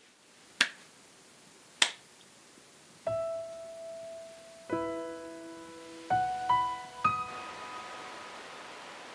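Two sharp hand claps about a second apart, the clap of a prayer, followed about three seconds in by solo piano playing slow, spaced notes and chords.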